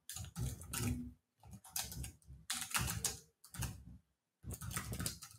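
Computer keyboard typing in short bursts of keystrokes with brief pauses between them.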